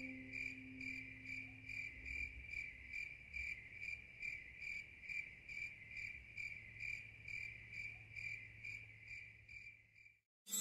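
Cricket chirping faintly and evenly at a steady high pitch, about three chirps a second, stopping shortly before the end.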